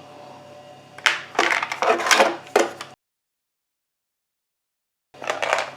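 Screwdriver set being handled, its metal bits rattling and clinking in bunches. The sound drops to dead silence for about two seconds, then a short rattle returns near the end.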